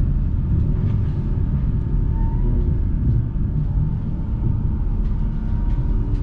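Tram in motion, heard from inside the car: a steady low rumble of wheels on rails and running gear, with a faint thin whine and a few light rattles on top.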